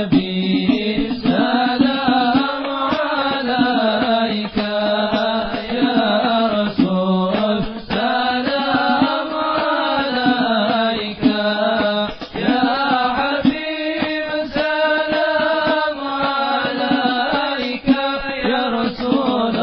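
Islamic devotional chanting (sholawat) sung to a melody, with percussion strokes.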